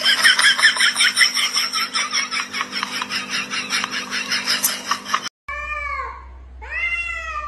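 A harsh, rapidly pulsing sound, about eight pulses a second, for about five seconds, which stops suddenly. Then a cat meows twice, each meow falling in pitch.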